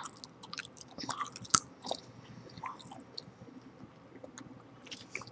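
Close-miked gum chewing: wet, irregular mouth clicks and smacks, with one sharper click about a second and a half in.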